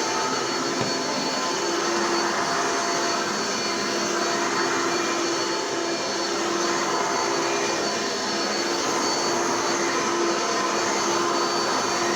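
Hoover Elite commercial upright vacuum cleaner from the 1990s running steadily: a constant rush of air with a steady motor hum.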